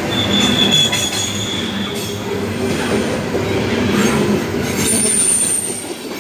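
Loaded coal hopper cars of a fast freight train rolling past on steel wheels, a steady loud rumble and clatter. A high wheel squeal rings for about the first two seconds, and a thinner, higher squeal comes near the end.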